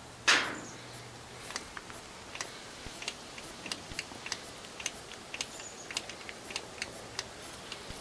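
Pistol-grip grease gun being pumped, its lever clicking sharply and fairly regularly about three times a second as it forces grease through a needle-nose adapter into a backhoe pivot-pin fitting. A brief loud rush of noise comes about a quarter second in.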